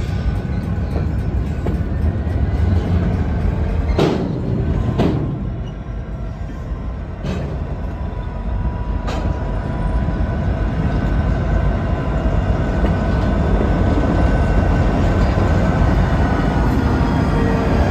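Union Pacific freight train rolling past, with a heavy steady rumble and a few sharp knocks from the wheels. The diesel sound of its EMD GP40-2 and GP60 locomotives grows louder over the second half as they come alongside.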